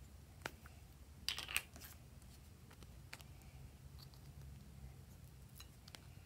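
Cat-shaped plastic makeup pot clicking as its lid is pulled open: one sharp click, then a short rattling burst of clicks, the loudest sound here. Faint ticks follow as a plastic spoon scrapes the balm out.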